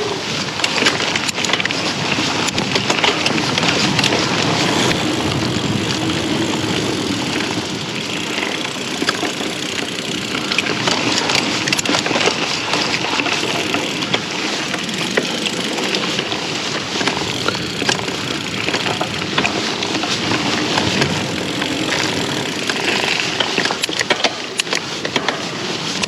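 A mountain bike riding over singletrack strewn with pine straw: steady tyre noise and crunching, with many clicks and knocks as the bike rattles over the trail, and wind rushing over the microphone.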